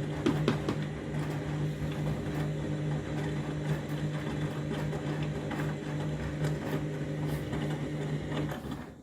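Candy washing machine running mid-cycle: the drum motor hums steadily, with irregular clicks and knocks from the turning drum and load. The motor stops and the sound falls away just before the end.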